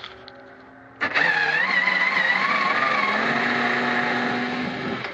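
Cordless power screwdriver running for about four seconds as it backs a screw out of the trailer's panel. It gives a steady motor whine that starts about a second in, rises a little in pitch partway through, and stops near the end.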